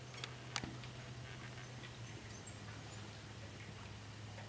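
A few sharp clicks and taps from small birds landing and pecking at wire suet cages on a metal feeder rack, the loudest about half a second in, over a low steady hum.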